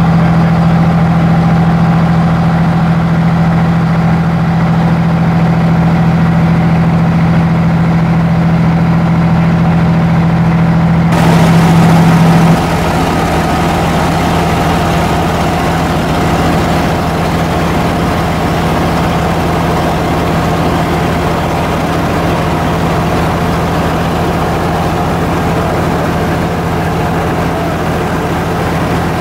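Fire engine's motor running steadily at a fixed speed, driving its pump while the deck gun sprays water, with one strong steady hum. About 11 seconds in the sound changes abruptly to a broad steady hiss over a lower engine drone.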